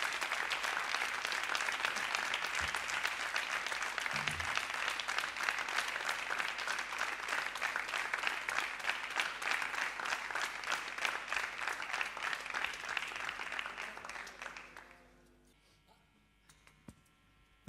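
Audience applauding, a dense patter of claps that tapers slightly and then cuts off suddenly about fifteen seconds in, leaving near silence with a faint steady hum.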